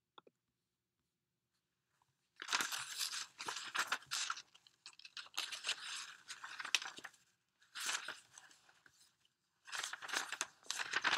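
Pen scratching on paper in several bursts of a second or two each, the sound of handwriting. The strokes start about two seconds in.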